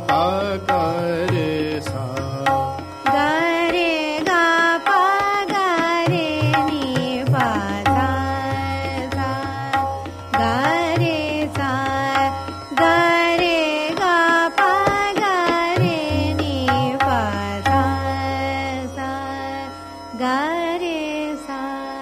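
Raag Hansadhwani swar malika: a gliding melodic line over tabla in medium-tempo teen taal, tapering off near the end.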